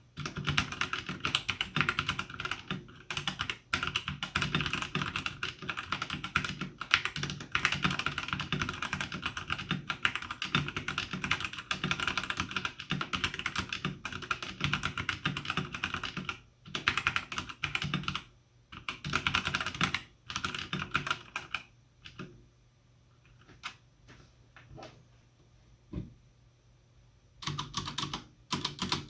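Fast typing on an E-Element Z-88 mechanical keyboard with Gateron Brown switches, O-rings and PBT keycaps: a dense stream of key clicks. The typing thins out and stops about two-thirds of the way through, with only a few isolated clicks. Separate key presses start again near the end.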